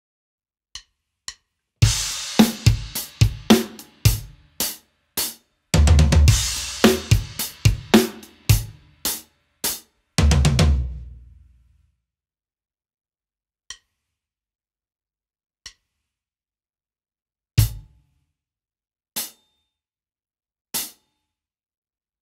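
Sonor SQ2 birch drum kit with a bronze snare and Meinl Byzance hi-hats: two quiet clicks, then an eighth-note groove of hi-hat, kick and snare leading into a beginner fill that ends in four sixteenth notes on the snare and lands on a crash, which rings for about a second and a half. After that come a few single strikes spaced about two seconds apart.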